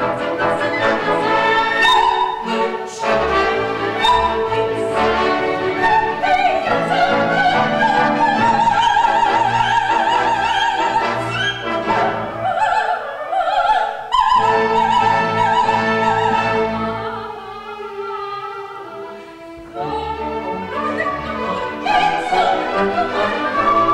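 Operatic soprano singing long held notes with wide vibrato over an orchestra. The music drops quieter for a couple of seconds after the middle, then swells again.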